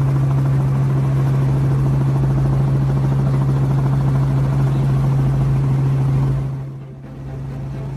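A running machine's steady low hum, with one strong droning tone. It eases about six and a half seconds in, then carries on a little quieter.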